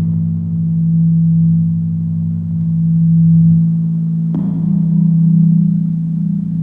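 Low sustained drone of a few held, slowly swelling tones with a gentle pulse, like electronic drone music. About four and a half seconds in, a new gong-like tone is struck and its bright upper ring fades while the drone shifts.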